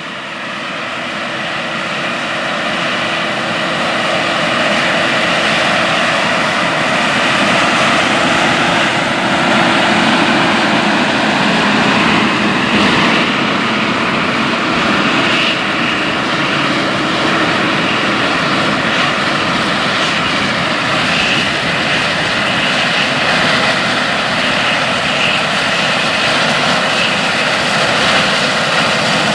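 Large 600-plus-horsepower farm tractor pulling a 34-foot disc harrow through corn stubble. Its diesel engine runs steadily under heavy load, mixed with the noise of the disc working the ground. The sound grows louder over the first few seconds as the tractor approaches, then holds.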